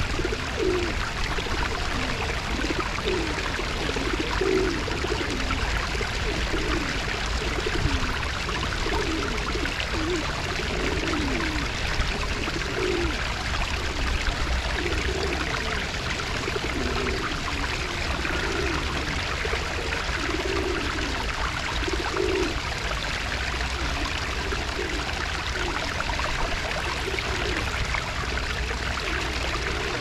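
Feral pigeons cooing over and over, against a steady rush of running water.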